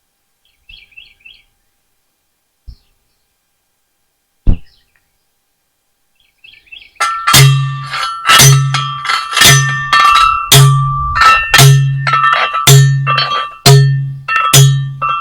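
Heavy homemade T-post driver pounding a steel T-post into the ground: loud metallic clangs about once a second, each with a deep thud and a ringing tone, starting about seven seconds in. Before that, a single sharp knock and a few faint chirps.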